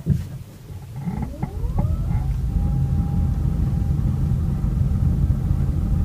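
Honda Vezel pulling away from a stop: about a second in, a creaking, grinding 'gi-gi-gi' noise with a rising whine as it accelerates, then steady driving rumble. The creak comes on every start-off and also on accelerating from low speed, so the owner doubts it is the brakes.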